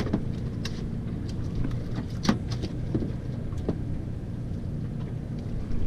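A freshly landed summer flounder flopping on the boat deck: a string of sharp knocks and slaps over the first few seconds, the loudest about two seconds in. Under it runs the steady low rumble of the boat's idling outboard motor.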